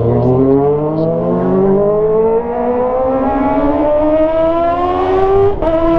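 Kawasaki ZX-25R's 250 cc inline-four through a straight-piped GP exhaust, revving steadily higher as the bike accelerates in second gear. Near the end the pitch drops suddenly at an upshift, with a short crack.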